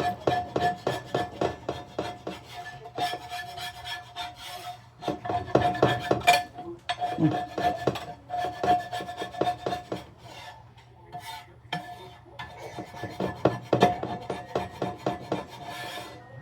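Scraping stuck-on sausage bits off a cooking pan: a fast run of repeated scraping strokes, pausing briefly about two-thirds of the way through.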